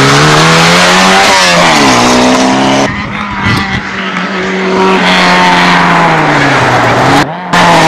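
Rally car engines at high revs driven through corners, the pitch climbing and dropping with gear changes and lifts off the throttle. About three seconds in the sound drops to a quieter stretch, then a second car's engine comes in and revs up and down; near the end it cuts out briefly.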